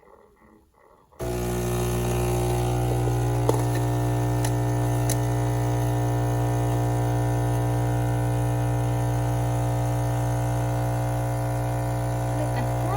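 Gaggia Anima Prestige super-automatic espresso machine running steadily while it makes a cappuccino, a loud low hum that starts about a second in after a near-silent pause, with a few faint clicks.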